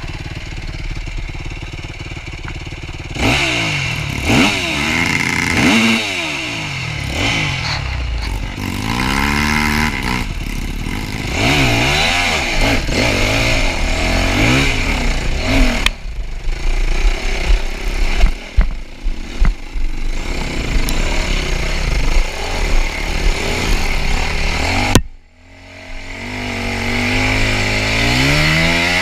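Yamaha YZF 250 dirt bike engine revving up and down again and again on an off-road trail, with clatter from the bike over rough ground. Near the end the sound drops sharply for a moment, then the revs climb again.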